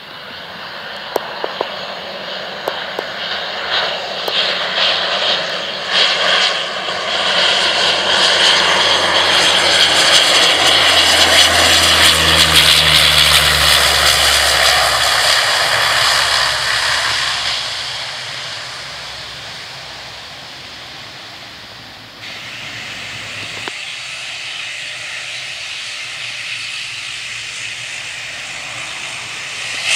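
De Havilland Canada Dash 8 twin turboprop landing. Its engine and propeller noise grows as it approaches and is loudest as it passes on the runway, where a low propeller hum drops in pitch, then it fades. About three quarters through the noise jumps up suddenly and holds steady.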